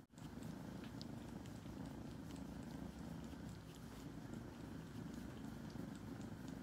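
A young calico kitten purring steadily as its chin and cheeks are massaged by hand, a low, fast-pulsing rumble, the sign of a relaxed, content kitten.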